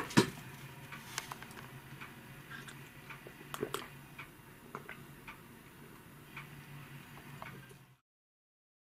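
A person drinking from a glass: scattered light clicks and swallowing sounds over a low steady hum, with two stronger gulps about halfway through. The sound cuts off abruptly near the end.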